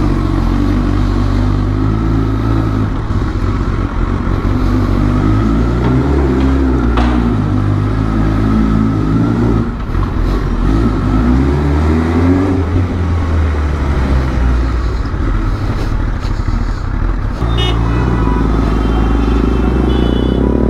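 Superbike engine running as it is ridden away, the revs repeatedly rising and falling with throttle and gear changes.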